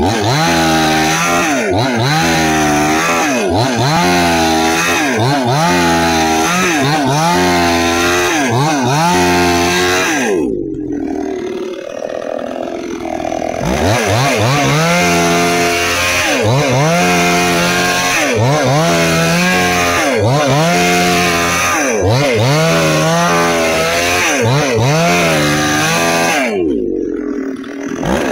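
Nagano MN 6000 two-stroke gasoline chainsaw cutting through a log. The engine's pitch rises and drops about once a second under the load of the cut. It falls back to a lower speed for a few seconds about ten seconds in and again near the end.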